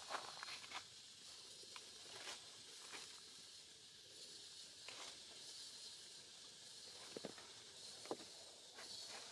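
Quiet outdoor ambience among grooming macaques: a faint steady hiss with scattered soft clicks and rustles, about nine of them, as the monkeys shift on dry leaf litter.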